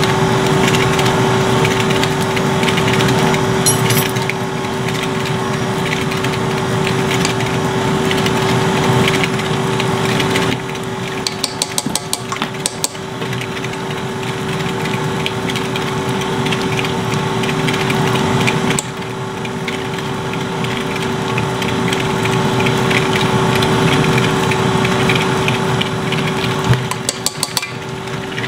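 KitchenAid stand mixer running steadily, its whisk attachment beating a thick cream cheese mixture in the stainless steel bowl, with a constant motor whine. A few light clicks come about 11 to 13 seconds in and again near the end.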